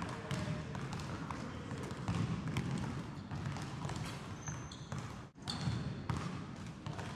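Basketball bouncing repeatedly on a hardwood gym floor, with a couple of short high squeaks about four and five and a half seconds in.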